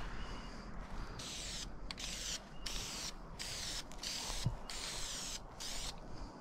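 Aerosol spray-paint can giving a series of short hissing bursts, each under a second, with brief gaps between, as paint is dusted onto the layout base.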